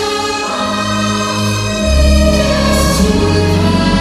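Nighttime show soundtrack music: a choir singing long held notes over the music, with deep bass notes coming in about two seconds in as the music swells louder.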